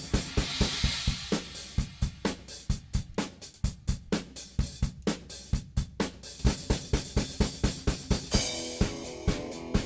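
Background music led by a fast, steady drum-kit beat, with a cymbal crash about half a second in and another near the end, where held pitched instrument notes join in.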